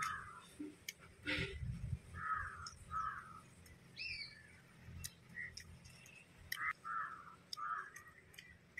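Crows cawing: two short caws a couple of seconds in and a run of four more near the end. A higher bird chirp comes around the middle, and a few short clicks are heard.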